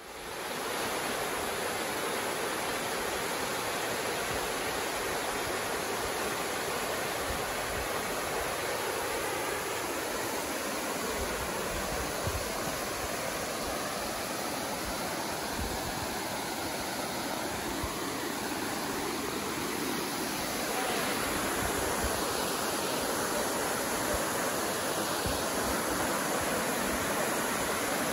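Rushing water of a forest creek and waterfall, a steady hiss that grows a little louder about two-thirds of the way in, with a few low bumps in the middle.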